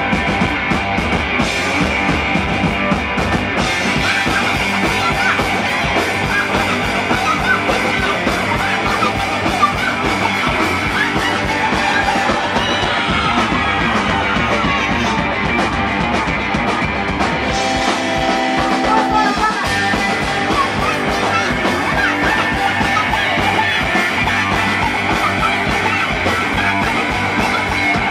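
Punk rock band playing live and loud: electric guitar and drums driving a fast, steady beat, with the singer shouting into the microphone.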